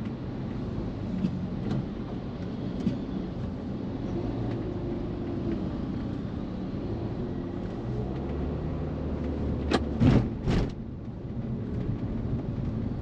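A car driving, with steady engine and road rumble, a few light knocks, and two loud thumps close together about ten seconds in.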